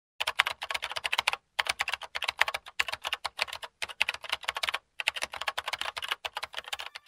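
Keystroke typing sound effect: rapid keyboard clicks in quick runs, with short breaks about a second and a half in, near four seconds and near five seconds, as on-screen text is typed out letter by letter.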